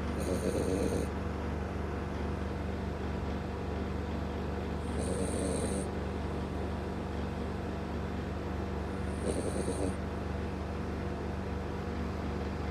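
French bulldog snoring: three snores about four and a half seconds apart, each a rough rattle with a thin high whistle over it, the kind of snoring typical of the breed's short, flat-faced airway.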